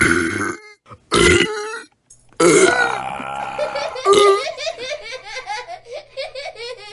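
A run of human burps. One trails off at the start, a short one comes about a second in, then a long drawn-out burp starts about two and a half seconds in and breaks into a rapid pulsing rattle near the end.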